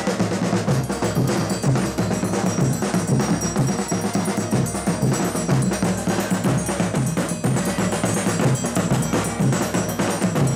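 Folia de Reis band playing a chula: snare drums beating a steady rhythm over repeating low accordion notes.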